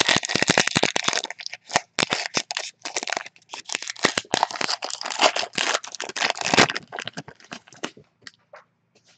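A 2018 Panini Unparalleled football card pack's shiny foil wrapper being torn open and crinkled by hand. The crackling is dense at first and thins to a few scattered crackles near the end.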